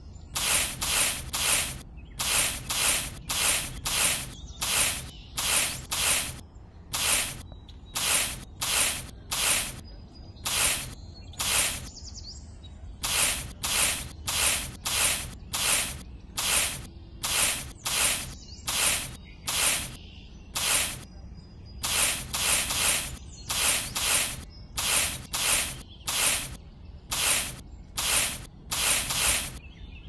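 A miniature hoe scraping through sand in quick, regular strokes, about two a second, each a short sandy hiss, in runs broken by brief pauses.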